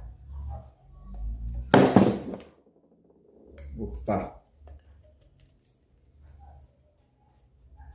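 A small hard object dropping and clattering on the work table about two seconds in, followed by soft handling knocks of PVC pipe fittings.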